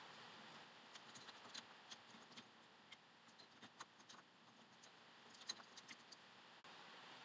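Faint metallic clinks and rattles of a bearing puller's steel arms and jaws being fitted over a car's rear wheel hub, in a scatter of light clicks with one sharper clink about five and a half seconds in, over a low steady hiss.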